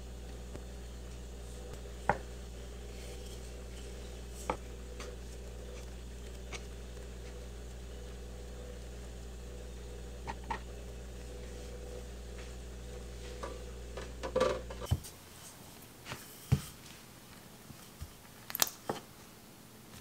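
Scattered light taps and clicks of objects being handled, over a steady low hum that cuts off suddenly about three-quarters of the way through.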